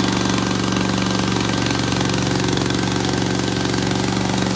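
Small engine of a remote-control tracked lawn mower running steadily at an even speed.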